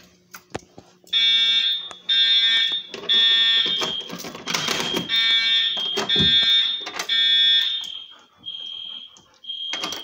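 Fire alarm horn sounding in pulses about once a second, weaker near the end: the fire alarm system in alarm after a manual pull station is pulled.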